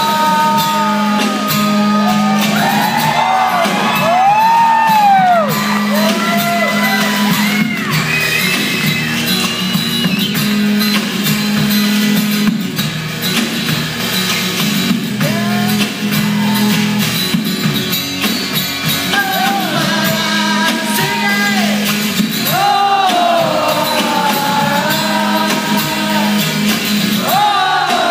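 Live rock music with long wordless wails that slide up and down in pitch over the band.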